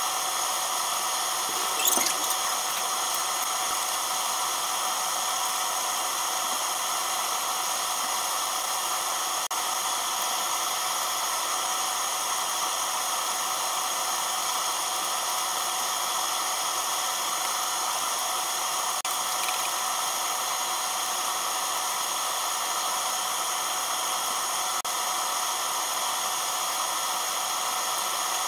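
Venison slices sizzling on the wire mesh of a tabletop gas grill, mixed with the steady hiss of its gas burner. A brief click about two seconds in.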